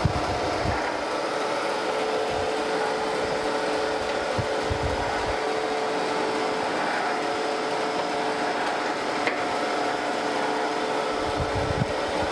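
Landis surface grinder running: a steady hum from the wheel spindle and table drive while the table carries the straight edge castings back and forth under the grinding wheel for a light pass. A few low thumps come a few seconds apart.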